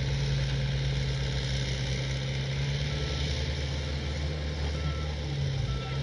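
Backhoe loaders' diesel engines running, with a reversing alarm beeping a few times from about halfway through.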